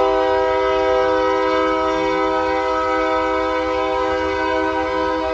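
Locomotive air horn sounding one long, steady blast of several notes at once as the train approaches.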